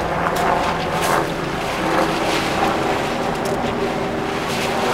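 Steady wind noise buffeting the microphone, a constant rushing with no distinct events.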